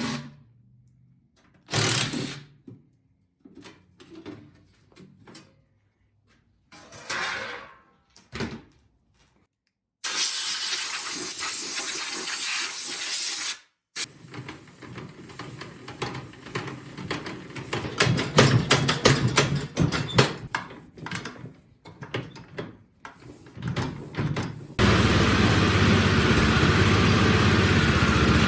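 Workshop work sounds on a snowblower: scattered knocks and clunks, then a steady hiss for about four seconds, then irregular mechanical clattering. About 25 seconds in, the MTD snowblower's small engine starts and runs steadily.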